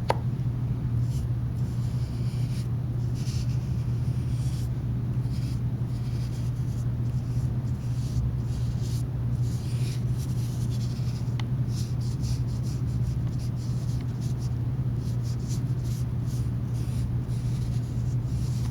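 Paintbrush loaded with tempera paint brushing across paper in soft, irregular swishes, over a steady low hum.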